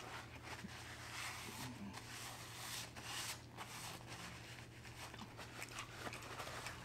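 Faint close-up eating noises from a messy seafood boil: rustling and small clicks as the food is handled and chewed, busiest about three seconds in.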